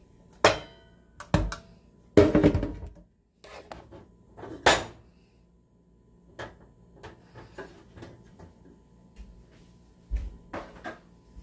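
Kitchen clatter of a pan and utensils being knocked and set down: a clank with a brief metallic ring, then a louder clattering burst about two seconds in, a sharp knock, scattered small knocks, and more clatter near the end.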